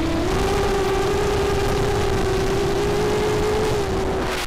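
A quadcopter's brushless motors (1806 T-Motors spinning 5045 bullnose props) whining at a steady pitch over a rushing noise. The pitch steps up slightly about a third of a second in, and the sound falls away at the very end.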